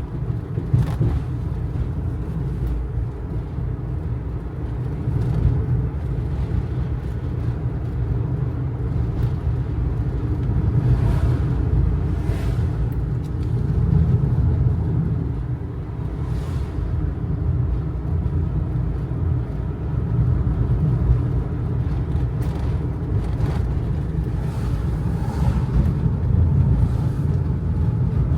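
Kei truck with its small 660 cc engine driving on a winding mountain road: a steady low engine and road rumble, with a few light knocks and rattles from the truck now and then.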